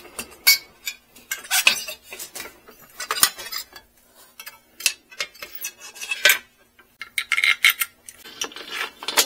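Light metal clinks and rattles of an aluminum bicycle fender, its thin wire stay and small bolts being handled and fitted at the front wheel, in irregular short taps with a couple of brief rattly flurries.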